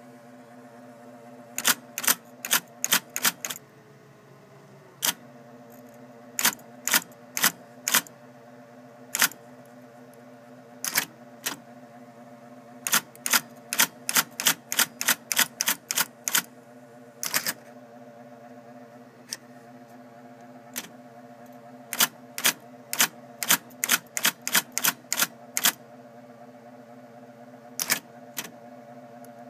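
IBM Selectric II electric typewriter being typed on: quick runs of sharp key strikes separated by short pauses, over the steady hum of its motor.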